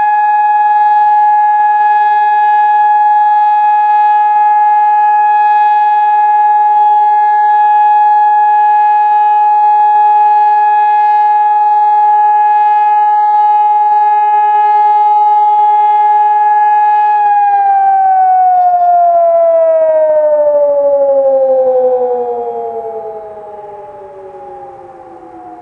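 Hörmann ECN 2400 high-power electronic civil-defence siren sounding one steady, loud tone; about 17 seconds in, its pitch begins to slide steadily downward as it winds down, and the sound fades near the end.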